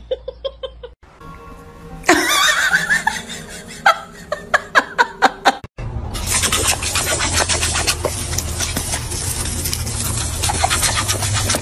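A garden hose spray nozzle hissing steadily as it sprays water at a dog that bites at the stream. Before it, about the first half holds short snatches of music and laughter with a run of sharp clicks.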